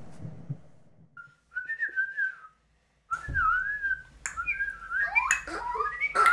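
A low noise fades out over the first second. Then a single whistle with a wavering pitch starts, breaks off briefly and comes back. From about five seconds in, several overlapping whistles with sliding pitches join it.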